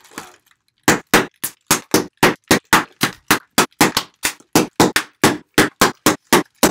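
Bubble wrap being popped by hand: a run of sharp pops, about four a second, starting about a second in.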